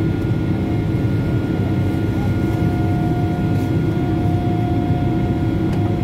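Boeing 777 cabin noise while climbing after takeoff: a steady loud drone of the jet engines and rushing air, with a thin steady whine over it that drops out and returns about two and a half seconds in.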